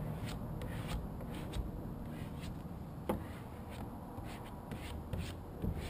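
Short scratchy rubbing strokes, about two a second, as a squeegee is worked over a vinyl decal to press it onto the trailer's side, over a low rumble. One sharper click about three seconds in.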